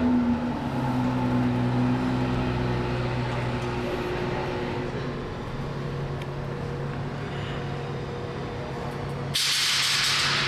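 A vehicle engine idling with a steady hum that steps up slightly in pitch about halfway through. About nine seconds in, a sudden loud hiss of air lasts about a second.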